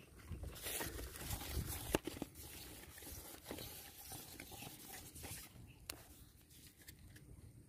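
Rustling and scraping from a fabric sleeve brushing against the camera microphone, with a sharp click about two seconds in; the noise dies down after about five seconds.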